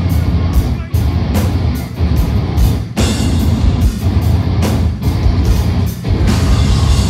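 Deathcore band playing live, with heavily distorted guitars and drums. The whole band hits together in a stop-start breakdown, briefly cutting out about once a second.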